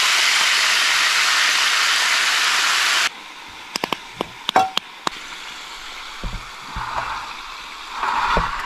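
Coral trout pieces sizzling loudly in a frying pan with soy sauce and oil while caramelizing. The sizzle cuts off abruptly about three seconds in, followed by a much quieter stretch with a few short sharp clicks.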